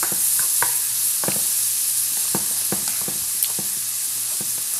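Fried rice sizzling in a hot pan as it is stirred, with a steady hiss and irregular clacks of the spatula against the pan, two or three a second.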